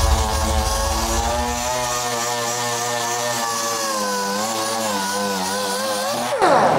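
Pneumatic dual-action sander running against a car door's old paint and rust, a steady whine with slight wavers in pitch, winding down in a falling glide near the end.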